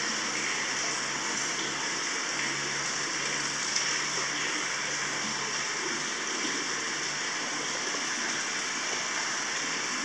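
Hot-spring water pouring and splashing steadily into a tiled bath: a constant, even rush of falling water.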